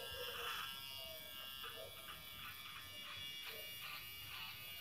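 GSE 009 cordless electric hair clipper running with a steady buzz as it trims beard hair along the jaw and under the chin.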